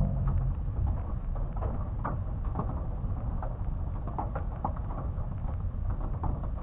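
Small hailstones and rain pelting a window during a thunderstorm, played back slowed down: many scattered, irregular taps over a steady low rumble.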